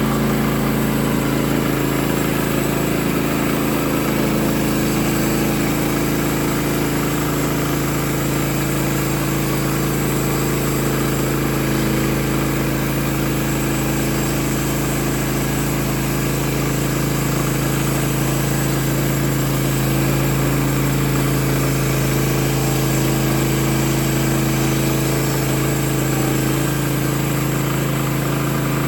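The engine of a Woodland Mills HM130 Max portable bandsaw mill running steadily at a constant speed.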